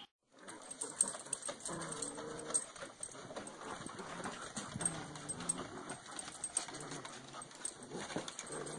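Dog whining in short pitched cries several times, with scattered clicks and scuffles of dogs moving and tussling over a toy.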